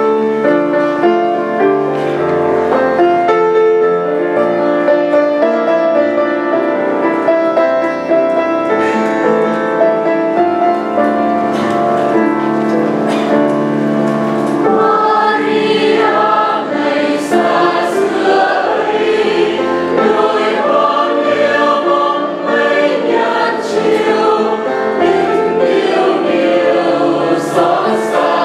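Mixed church choir of women and men singing a hymn together in sustained, full harmony.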